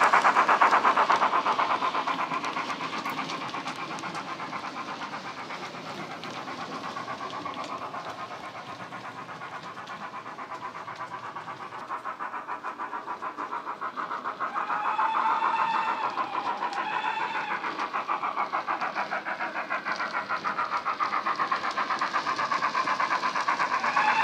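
Model BR Standard 9F steam locomotive's DCC sound decoder playing a steam engine's rapid, even exhaust chuffs through a small bass-enhanced speaker in the model, loudest as it passes at the start and fading as it draws away. A steam whistle sounds twice about 15 and 17 seconds in, and again near the end.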